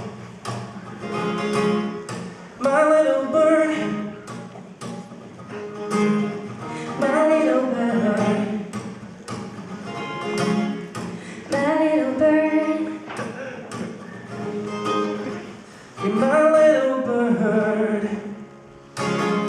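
Acoustic guitar accompanying wordless sung vocal phrases, which rise and fall every couple of seconds in the song's closing section.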